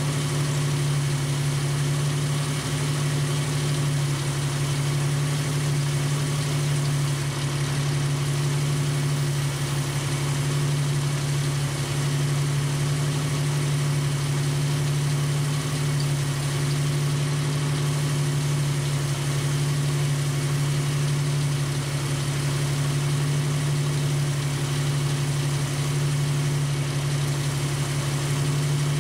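Jeep Wrangler YJ engine idling at about 800 RPM while it drives a belt-driven onboard air compressor, a converted Sanden A/C compressor, filling a tire through an inflator chuck. A steady, even drone that does not change.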